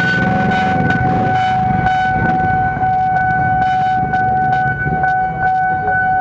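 Railway level-crossing warning alarm sounding a steady, high electronic tone while the barrier is down. A commuter electric train's rumble underneath fades over the first couple of seconds.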